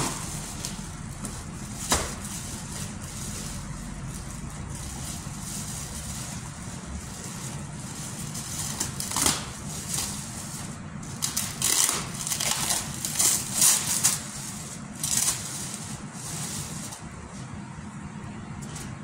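Clear plastic wrapping crinkling and rustling as a new tractor torque amplifier unit is unwrapped, the rustles bunched in the middle to later part. Two sharp knocks come near the start, over a steady low hum.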